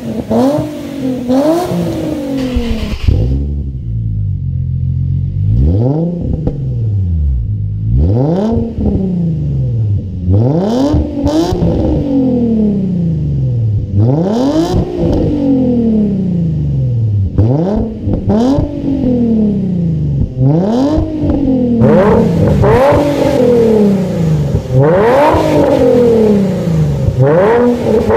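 Nissan 350Z's 3.5-litre V6 revved repeatedly in park through its dual exhaust. It rises and falls in pitch again and again, about one rev every two seconds, with the revs coming faster and higher near the end.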